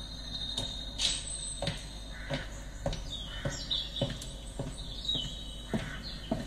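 A car stereo test track played through the truck's upgraded speakers: footsteps walking at a steady pace, just under two steps a second, with birds chirping in the background. Heard inside the cabin of a 2023 Nissan Frontier.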